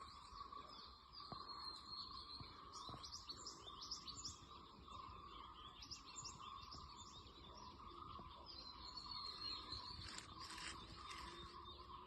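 Faint outdoor ambience of small birds chirping repeatedly, with short high chirps throughout, over a steady high-pitched whine.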